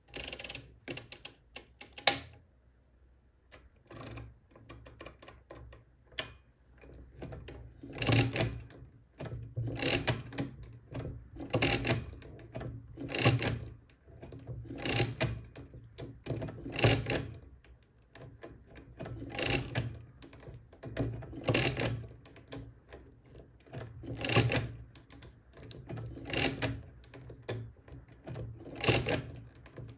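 Odhner pinwheel arithmometer: a quick run of ratcheting clicks ends in a sharp snap about two seconds in as the counter register is reset. Then the hand crank is turned over and over, each turn a short metallic clatter of pinwheels and gears, about one turn every two seconds.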